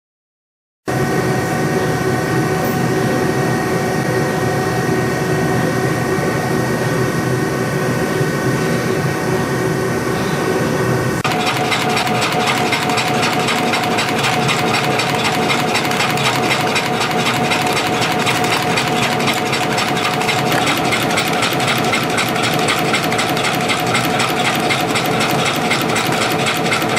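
YHM CF-310 CNC compression spring coiling machine running, coiling 0.7 mm wire into springs: a loud, steady mechanical running noise with a steady whine, starting abruptly just under a second in. About eleven seconds in the pitch of the whine changes and the noise takes on a fast, even rattle.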